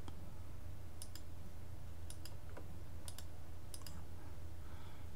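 Computer mouse clicking about five times, single clicks spaced roughly half a second to a second apart, over a faint steady low hum.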